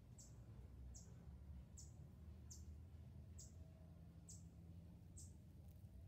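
A faint, high, short chirp, falling slightly in pitch, repeated at a steady pace a little more than once a second, over a faint low rumble.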